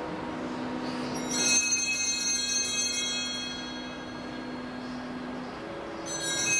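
Altar bells shaken and ringing twice, each peal a bright cluster of high tones: the first starts about a second in and fades after about two seconds, the second begins near the end. A low steady tone runs underneath.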